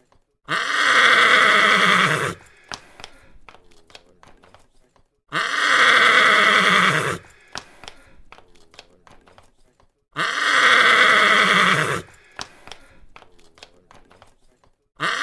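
Horse whinnying: the same loud call, about two seconds long, repeats three times about five seconds apart, and a fourth begins at the very end. Faint short knocks sound in the gaps between calls.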